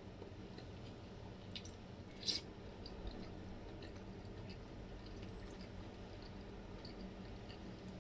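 Close-miked chewing: soft, wet mouth sounds of food being chewed with the lips closed, with faint scattered clicks. About two seconds in there is one louder, brief crackle.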